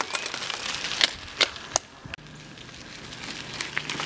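Mountain bike tyres crunching over a dirt trail strewn with dry leaves as a rider passes, with several sharp clicks and knocks. About halfway through, the sound drops to a quieter steady low hum.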